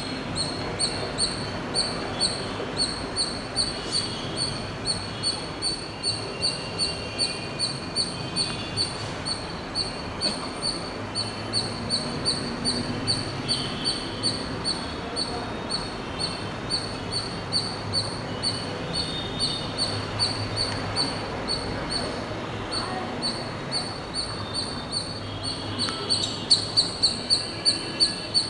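A squirrel chirping a short, high call over and over, evenly spaced at about two to three chirps a second. The chirps grow louder near the end.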